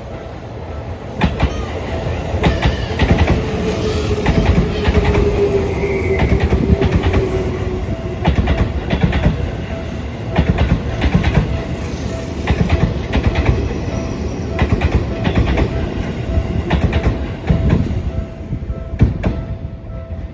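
Seibu Railway electric train passing over a level crossing, its wheels clattering rhythmically over the rail joints, with a motor whine that falls slowly in pitch about four seconds in. The crossing bell keeps ringing steadily underneath.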